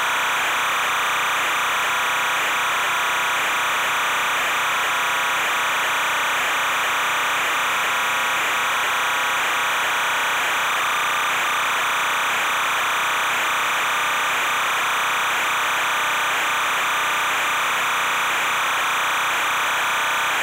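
A steady, even hiss that does not change at all, with no distinct events or tones in it.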